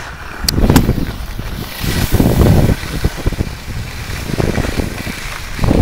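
Wind buffeting the camera's microphone in uneven gusts, with two sharp clicks from the camera being handled near the start.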